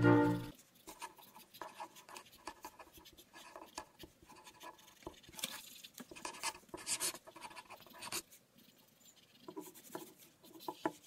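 Pencil scratching on paper in short, irregular sketching strokes, with a few louder strokes in the middle. Background clarinet music fades out in the first half second.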